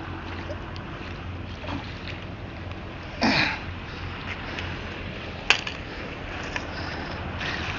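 Water splashing as a hooked sea bass thrashes at the surface and is scooped into a landing net, over steady wind and water noise, with one short, loud splash a little over three seconds in and a sharp click about five and a half seconds in.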